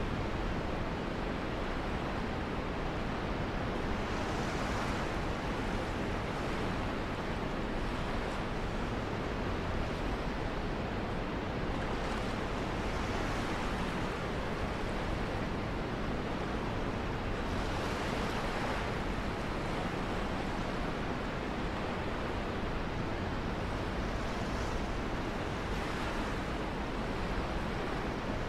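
Water rushing and splashing along a sailboat's hull as it moves through the sea, with some wind. It is a steady wash that swells into a louder hiss every several seconds.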